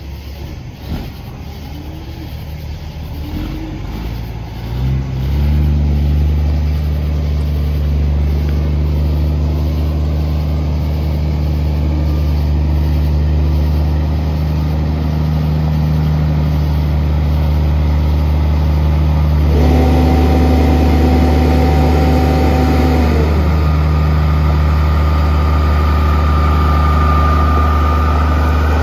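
Peterbilt 379 semi-truck's diesel engine pulling a cattle trailer, rising in pitch in the first few seconds, then a steady deep drone as the truck rolls slowly closer. A held tone sounds for a few seconds in the second half.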